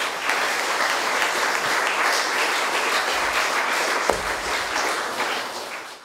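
Audience applauding steadily, with a single knock about four seconds in; the applause cuts off suddenly near the end.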